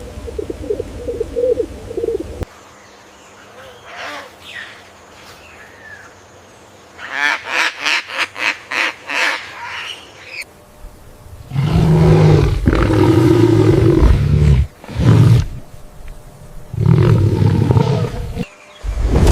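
Animal calls from a string of recordings: a quick run of honking bird calls, then from about halfway through a series of loud, deep roars.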